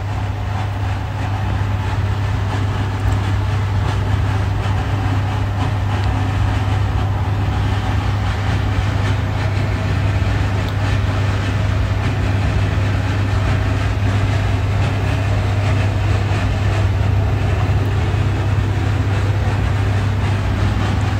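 Steady low hum with an even rushing noise over it, unbroken throughout.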